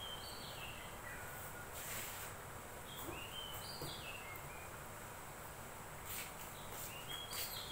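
A songbird repeating a short whistled phrase of clear notes that step up and down in pitch, three times a few seconds apart, over steady outdoor background noise with a few faint clicks.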